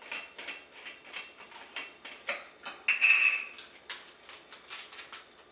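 Plastic screw-top of a water-ioniser cleaning cartridge being unscrewed: a string of small plastic clicks and ticks, with a louder scrape of plastic on plastic about three seconds in.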